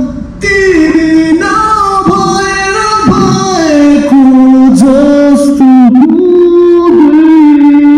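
Music with a singing voice carrying a gliding melody, loud throughout after a brief dip at the very start.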